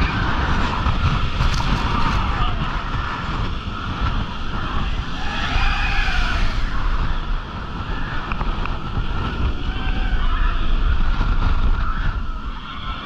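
Manta roller coaster train running at speed: heavy wind buffeting on the camera microphone over a low, continuous rumble of the train on its steel track. Wavering higher-pitched sounds come and go above it, most clearly about six seconds in.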